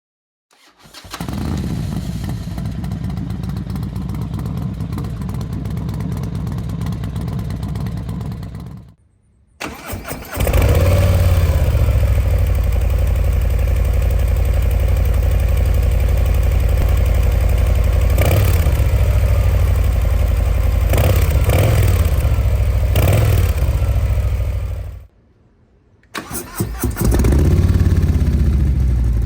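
2023 Harley-Davidson Low Rider ST's Milwaukee-Eight 117 V-twin started and idling, in three takes with brief cuts between them. In the second, longer take the throttle is blipped several times, each rev rising and falling back to idle.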